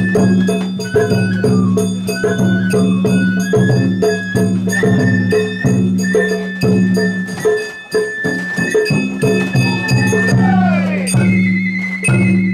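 Sawara-bayashi festival music from a float: a high bamboo flute melody over frequent drum strikes and small bell or rattle sounds, with a steady low hum underneath. A falling sweep of tones comes about ten seconds in.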